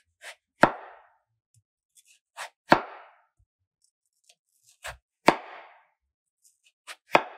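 Kitchen knife slicing through a peeled potato and knocking on a wooden cutting board: four cuts about two seconds apart, each a light tap followed by a sharp knock.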